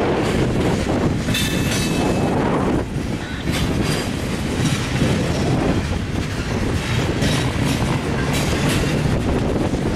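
Freight cars of a passing train rolling by at steady speed, a continuous low rumble with the clickety-clack of steel wheels over rail joints.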